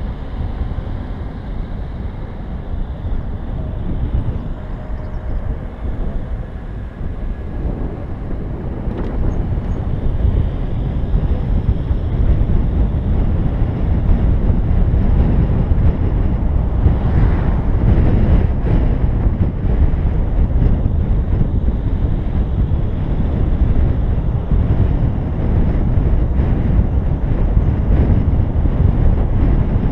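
Road and wind noise from a BMW i3s electric car driving along a paved road: a steady low rumble with no engine note. It grows louder about ten seconds in.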